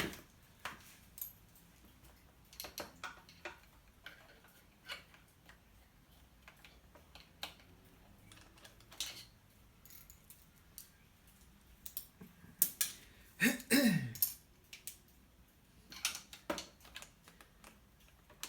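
Irregular light metallic clicks and clinks of hand tools and clamp hardware being worked while fitting fork clamps, with a louder cluster a little past the middle.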